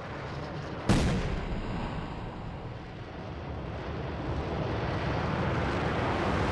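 Rocket sound effects: a sharp bang of a stage separating about a second in, followed by the steady rumble of the spacecraft's rocket engine firing, slowly growing louder.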